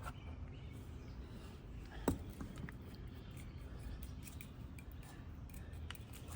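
Quiet handling noises from work on a fan motor: one sharp click about two seconds in and a few faint ticks over a low steady rumble.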